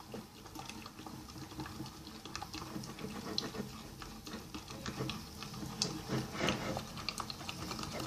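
Plastic spoon stirring glue and borax water in a bowl as slime is being mixed, with many small irregular clicks and soft wet sounds.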